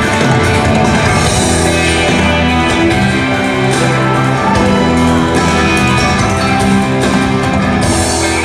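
Background music with guitar, in a rock style.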